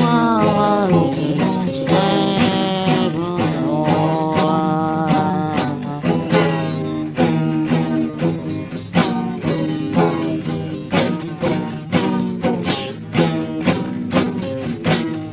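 Music: a song with a singing voice over plucked guitar and a steady percussive beat.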